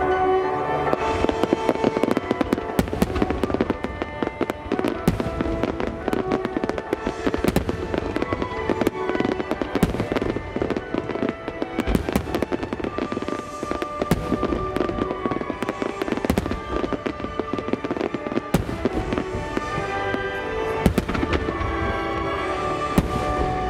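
Fireworks barrage: many shells bursting in quick succession with sharp bangs, over music with sustained tones. The bangs thin out near the end, leaving mostly the music.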